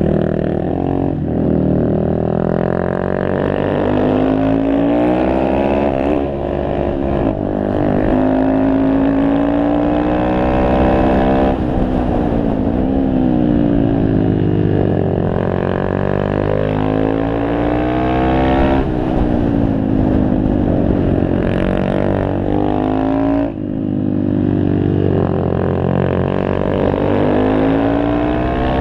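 Honda Grom's single-cylinder four-stroke engine revving hard and easing off in turn: the pitch climbs in long rising sweeps and falls back several times as the throttle opens and closes. About three-quarters of the way through the throttle is chopped suddenly, then the revs build again.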